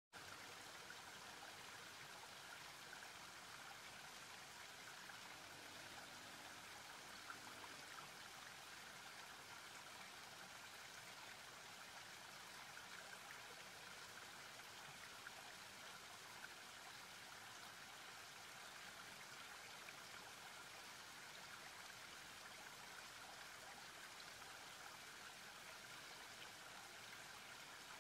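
Faint, steady rush of a fast-flowing river, its water churning white around a bridge pier.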